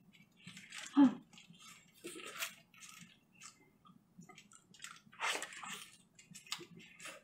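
Braised pork ribs being torn apart by hand and chewed: irregular wet squishing, smacking and tearing sounds, with a short hum from the eater about a second in.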